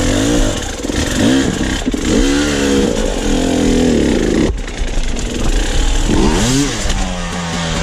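KTM two-stroke enduro dirt bike engine revving in repeated short bursts, its pitch rising and falling with each blip of throttle as the bike crawls over rock ledges. Near the end it settles to a steadier, lower note.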